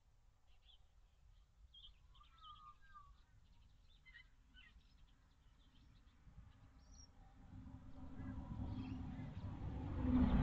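Faint, scattered bird chirps. Over the last few seconds a broad, rumbling noise swells steadily and becomes the loudest sound.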